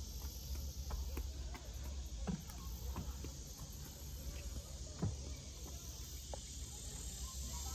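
Steady high buzzing of insects in the trees, with a few faint scattered taps.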